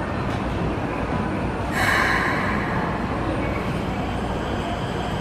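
Railway station platform ambience: a steady low rumble and hum beside a standing Keikyu train, with a short burst of hiss about two seconds in.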